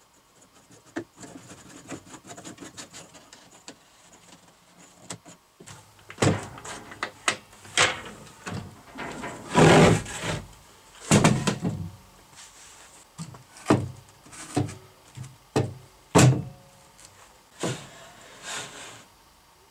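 Hands working on a wooden workbench: light rubbing and ticking as a wooden knob on a fence is turned, then a string of separate knocks, thuds and scrapes of wood and tools being moved about. The loudest comes about ten seconds in.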